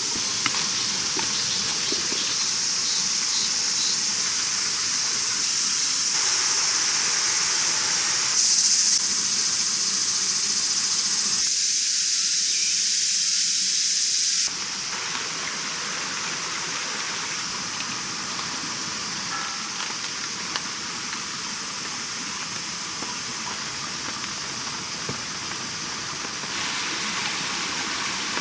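A steady hiss whose level and tone shift abruptly several times, with a few faint ticks.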